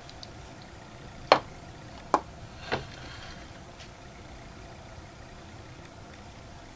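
Handling noise close to the microphone: three sharp clicks, the first about a second in and the loudest, the others close after it, over a faint steady background hiss.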